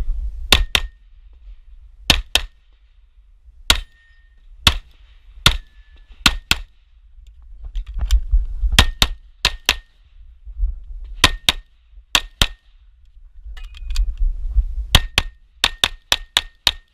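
Glock 34 Gen4 9mm pistol firing a USPSA stage, the shots mostly in quick pairs spaced a second or so apart, with a rapid string of shots near the end. Between strings, low rumble from the shooter moving with the camera.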